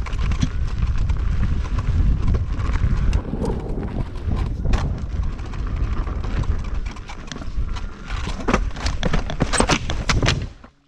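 Wind buffeting the microphone while a KingSong S22 electric unicycle is ridden over a bumpy dirt trail, with a stream of sharp knocks and rattles from the wheel and pedals hitting the ground. The knocks come thicker near the end, then the sound cuts off suddenly.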